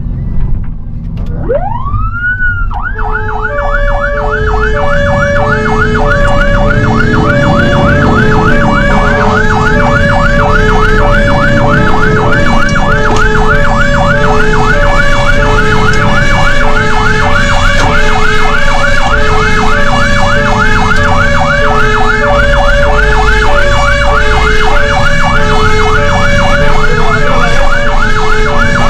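Fire engine's sirens sounding on an emergency run. A siren winds up about two seconds in, then sweeps rapidly up and down in a fast yelp, while a second siren alternates between two notes in a hi-lo pattern, over the truck's engine rumble.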